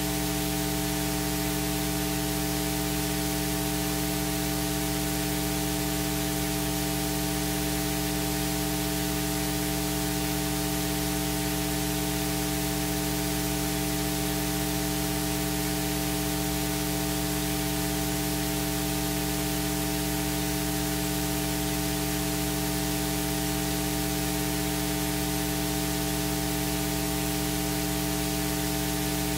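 Steady electrical hum with several constant tones over a hiss of static, unchanging throughout, typical of mains hum and noise in the recording or sound system.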